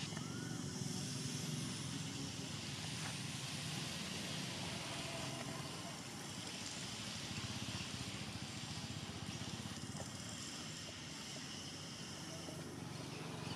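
Steady outdoor background noise: a low rumble under a high hiss, with no distinct sound standing out.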